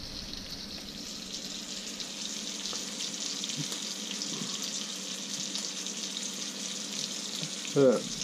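Venison steak sizzling in olive oil and butter in a skillet, a steady high hiss. A short, louder pitched sound with a bending pitch cuts in near the end.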